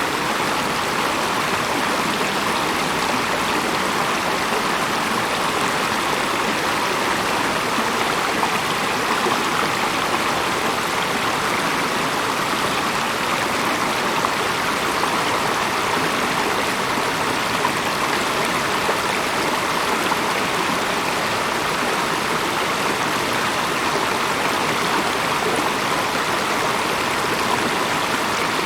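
Running stream water rushing steadily and evenly, with no lulls.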